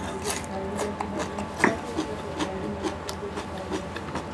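Close-miked eating sounds: irregular wet mouth clicks and crunches as a mouthful of chicken curry, rice and raw onion is chewed, with one sharper crack about a second and a half in.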